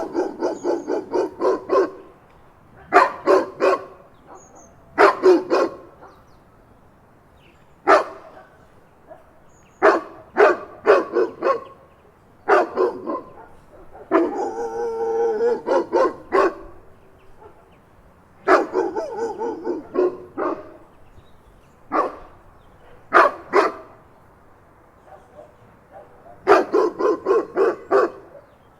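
Big dog barking in quick runs of several barks with short pauses between, and a single drawn-out whining bark about halfway through.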